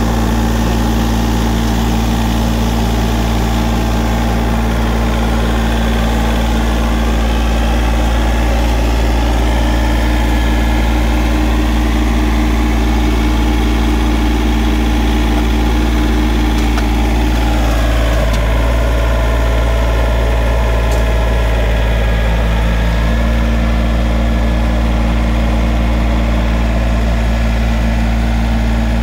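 John Deere compact tractor's engine running steadily. Partway through, its note shifts for a few seconds while the front loader lifts the barrel of dirt, then it settles again.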